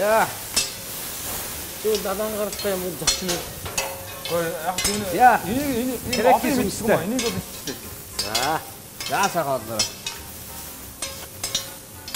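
Meat and vegetables sizzling on a large round Mongolian barbecue flat-top griddle, with long metal cooking sticks repeatedly scraping and clacking against the hot iron as the food is stirred and flipped.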